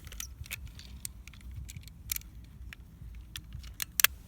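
Scattered sharp plastic clicks and taps from toy spinning tops being handled and knocking together, with a louder double click about four seconds in, over a steady low rumble.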